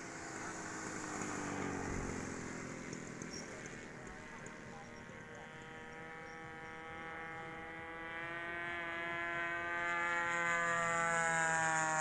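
Radio-controlled model airplane flying around the field with a steady buzzing drone. Its pitch slowly drops over the first few seconds as it moves away. In the last few seconds it grows louder and rises in pitch as it comes back.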